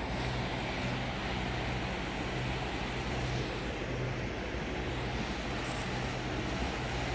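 Motor yacht's engines running steadily at cruising speed: a low, even hum with a steady hiss of wind and water over it.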